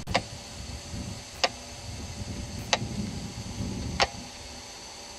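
A sharp click repeating at an even pace, four times about 1.3 seconds apart, over a faint steady hiss.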